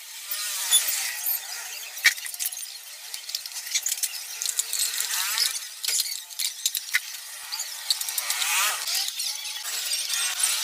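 A hard plastic engine cooling shroud being handled and pushed onto a scooter engine's aluminium cylinder: scraping and rubbing in short strokes, with a few sharp clicks and knocks of plastic on metal.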